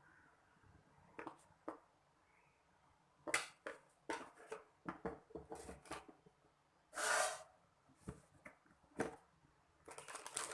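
Scattered light clicks and knocks of a spoon and spice containers against a pressure cooker pot as spices are added, with a short rustling burst about seven seconds in.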